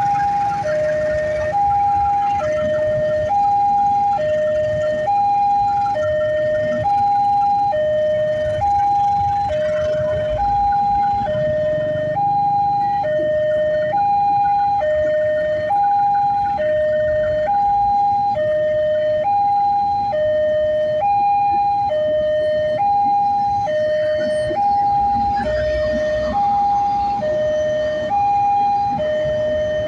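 Railway level-crossing warning alarm sounding a steady, slow high-low two-tone, each tone held for under a second, over and over. A passenger train runs past underneath it with a low rumble of wheels on the rails.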